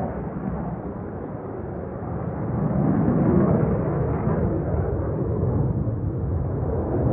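F-16 fighter jet's engine roar heard from the ground, a rough low rumble. It dips a little about a second in and swells again from about two and a half seconds in.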